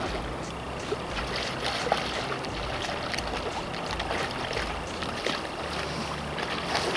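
Steady rush of river current, with scattered light splashes and ticks as a hooked fish thrashes at the surface.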